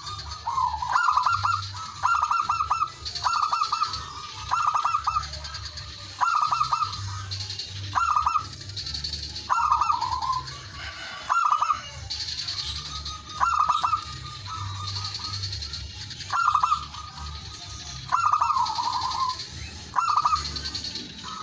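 Male zebra dove (perkutut) cooing: short, clipped coo notes repeated about once a second, some phrases opening with a rolling trill. This is a male's challenge song, given to call out a rival.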